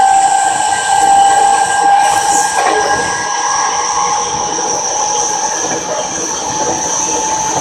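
Seibu 30000 series electric train running, its traction motors giving a steady whine of several held tones over rolling wheel and rail noise.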